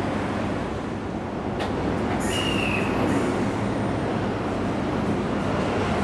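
Electric train running on the track with a steady low noise, a click about a second and a half in, and a short high squeal just after two seconds.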